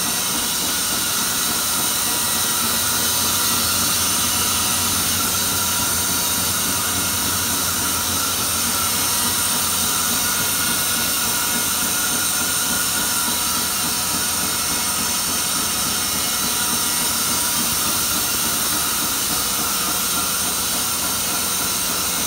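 Aida-Bruderer BSTA 50 high-speed stamping press running: a loud, steady mechanical din with a high hiss, its strokes too fast to hear as separate blows.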